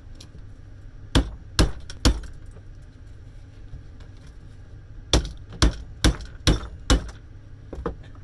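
Hammer blows on the scrapped electric motor of a garden shredder: three sharp strikes about half a second apart, a pause, then five more at the same pace, with a lighter knock near the end.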